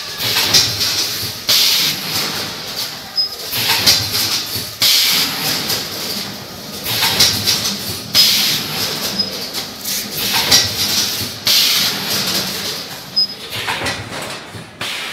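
Vertical pouch packing machine running in its cycle, its pneumatic cylinders letting out a sharp hiss of air with each stroke, about once every second and a half, over a steady mechanical rumble.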